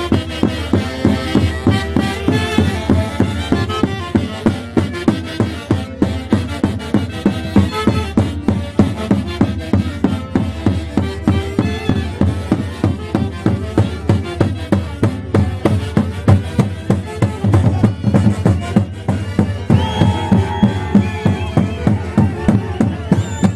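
Orchestra playing Santiago music of the Huancayo region, with a steady drum beat of about two to three strokes a second under the melody. Near the end a long high note is held for a few seconds.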